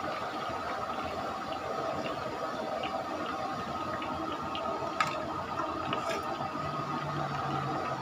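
Hot oil sizzling and bubbling steadily in a large wok of deep-frying chicken pieces, with scattered small crackles and one sharp knock about five seconds in.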